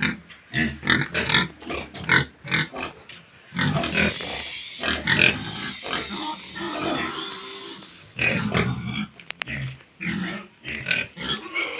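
Pigs calling in a run of short, separate sounds, with a longer, denser stretch of sound in the middle.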